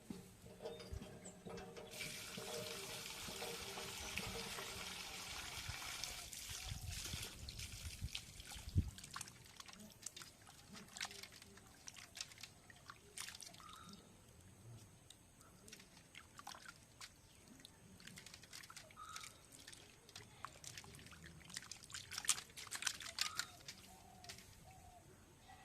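Water poured out for about four seconds, then scattered small splashes and drips as cut fish pieces are rinsed by hand.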